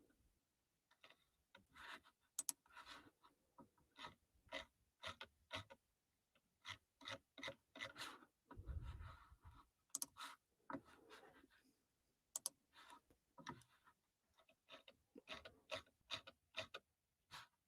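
Faint scattered clicks and rustles close to the microphone, with a soft low thud about nine seconds in.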